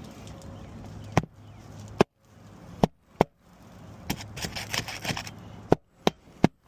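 Hammer driving roofing nails into an asphalt three-tab shingle: about seven sharp strikes at uneven spacing.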